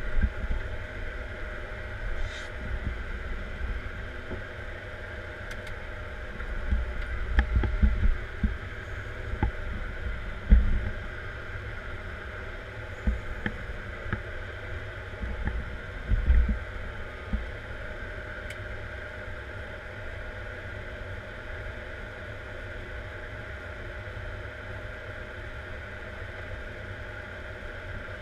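Caterpillar 140M Series 2 motor grader's diesel engine running steadily, heard from inside the cab, with low thumps and knocks from the machine as it works, loudest about 7 to 8 seconds in, at about 10 seconds and at about 16 seconds.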